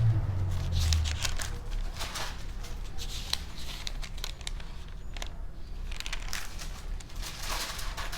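Thin paper pages rustling and being flipped in short, irregular bursts, as Bible pages are leafed through to find a passage.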